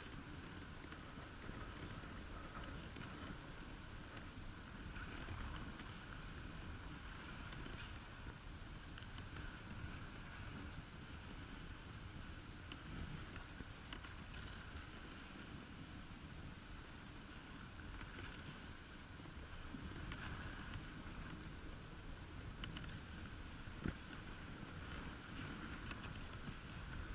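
Dog sled gliding over packed snow: a steady hiss and rumble from the runners. One sharp knock about three-quarters of the way through.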